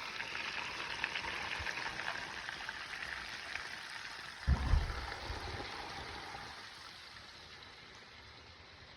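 Chicken pieces frying in hot oil, sizzling and crackling steadily, then slowly dying down over the second half. A single low thump about halfway through is the loudest sound.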